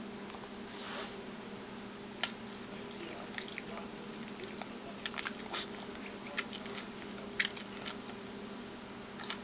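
Shih Tzu licking and smacking its lips: a scatter of short wet mouth clicks, busiest past the middle.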